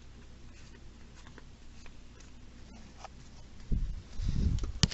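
Trading cards handled and flipped through, with faint papery rustles and small ticks of card against card. Near the end come a few loud, dull thumps and a sharp click as hands and cards meet the table.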